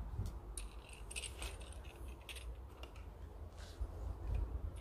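A coiled coaxial cable with metal end connectors being handled: scattered light clicks and clinks, over a low wind rumble on the microphone.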